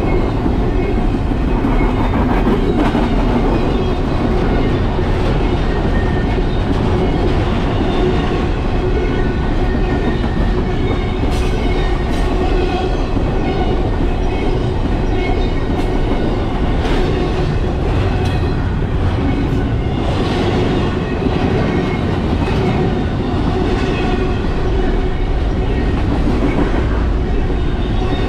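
Steady rumbling travel noise that never lets up, with a constant hum running through it and faint scattered rattles and clicks.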